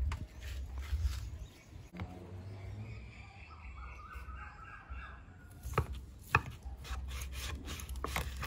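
A knife sawing through smoked bacon on a wooden board: scraping back-and-forth strokes, with a few sharp clicks of the blade on the board in the last few seconds.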